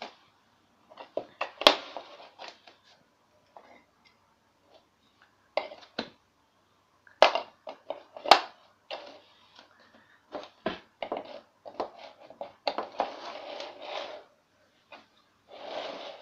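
Wooden toy train track pieces knocking and clattering against each other and a laminate floor as they are picked up and slotted together. The knocks are scattered and irregular, and the sharpest come about one and a half seconds in and again around seven and eight seconds in.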